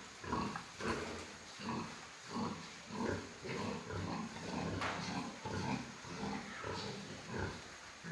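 Pigs grunting with short, repeated grunts, about two a second.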